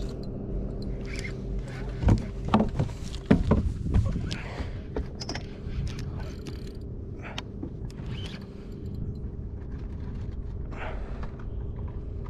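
Boat engine running steadily, with a cluster of loud knocks and clatter about two to four seconds in and scattered clicks from the fishing rod and spinning reel being handled while playing a fish.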